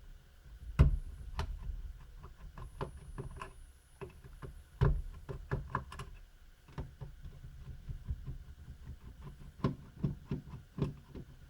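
Small clicks and knocks of a screwdriver and small screws being worked out of a laptop's plastic bottom case, with the laptop being handled; two louder knocks stand out, about a second in and near the middle.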